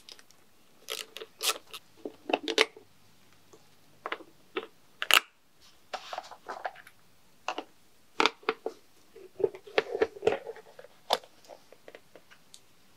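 Plastic ignition-coil cover on a BMW M50B25 engine being worked loose and lifted off by gloved hands: irregular plastic clicks, knocks and short scrapes, with one sharp knock about five seconds in.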